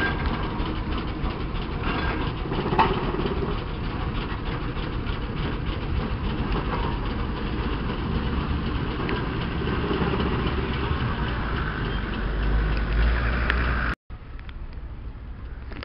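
Steam roller driving close past, its engine and iron rolls running with a steady low rumble. About 14 seconds in the sound cuts abruptly to a quieter, more distant traction engine.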